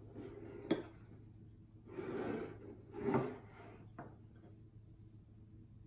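Tableware being handled on a wooden table: a sharp knock, two short rubbing, scraping sounds and a light tap as a plastic cup and plate are moved about.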